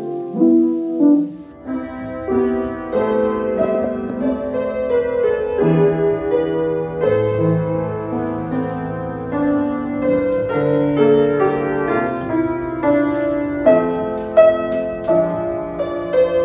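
Piano playing a tune in held notes and chords. A faint low background noise comes in about a second and a half in.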